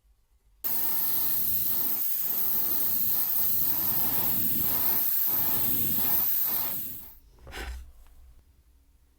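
Pressurised spray hissing steadily for about six seconds, starting suddenly, then a short second burst.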